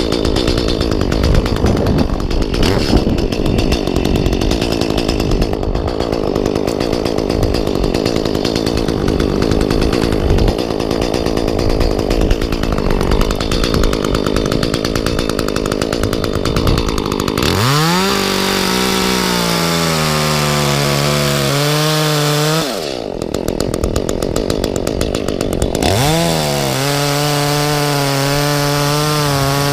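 Echo chainsaw cutting through oak wood, a dense rough sound under load, then revving freely at high speed with a steady high engine pitch about 17 seconds in. The revs drop briefly near 23 seconds and climb back up about three seconds later.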